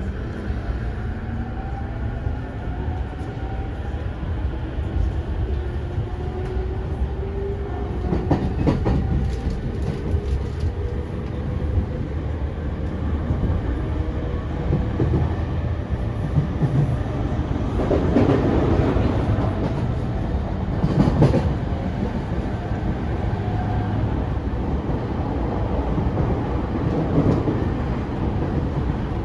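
Running sound of a JR E231 series 500-number electric train. The traction motor whine rises in pitch over the first ten seconds or so as the train accelerates, over a steady rumble of the wheels on the rails. Sharp wheel clacks come around nine seconds in and again around twenty-one seconds in.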